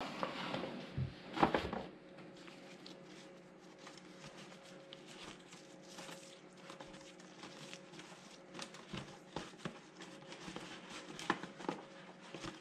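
Stiff paper gift bag being handled and its ribbon closure untied: irregular paper rustling and crinkling with small taps, the loudest rustle about a second and a half in, over a faint steady hum.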